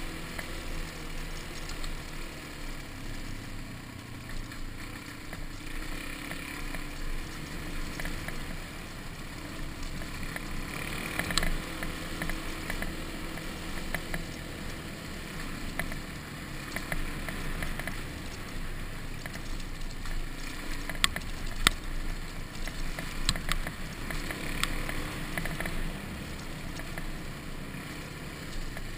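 Suzuki DR-Z dual-sport motorcycle's single-cylinder four-stroke engine running at a steady pace on a dirt road, with wind and gravel noise over the on-board camera. A few sharp knocks and clicks stand out, one just over a third of the way in and a cluster about three-quarters of the way through.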